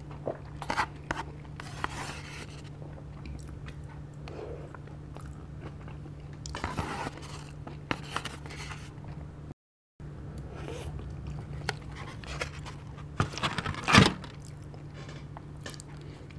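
Close-miked eating sounds: chewing and biting, with scattered small clicks of chopsticks and containers, over a steady low hum. A louder burst of mouth noise comes near the end, and the sound drops out completely for a moment about ten seconds in.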